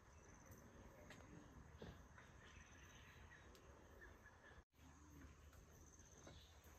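Near silence: faint outdoor ambience with insects chirping, briefly cutting out to total silence about two-thirds of the way through.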